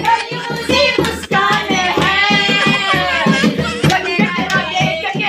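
Folk-style singing over a quick, steady beat of hand-played percussion.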